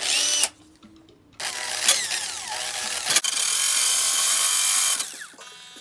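A power tool with a coarse abrasive grinds steel from a folding knife to take off the nub that blocks its compression lock. It runs in bursts: a short one at the start, then a long loud stretch with shifting pitch, winding down near the end.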